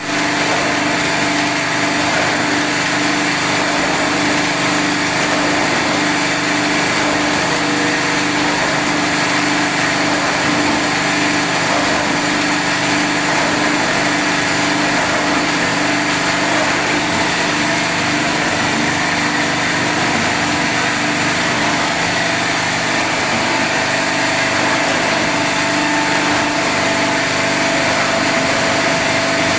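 Crystal ice machine running, a steady mechanical drone with a constant hum of several even tones over a broad hiss.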